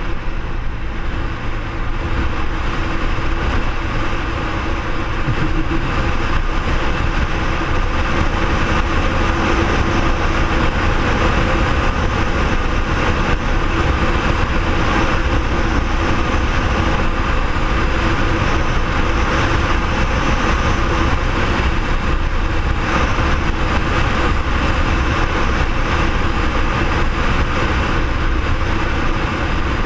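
BMW R1200R's boxer-twin engine running steadily at cruising speed, mixed with a steady rush of wind noise.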